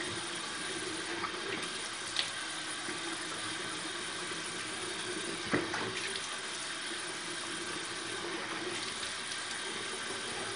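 Water running steadily from a bathroom sink tap, with a couple of brief knocks.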